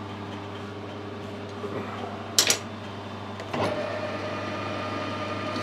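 Metal lathe starting up: a sharp clack about two and a half seconds in, then a second later the spindle and three-jaw chuck spin up and run with a steady whine, over a low steady hum.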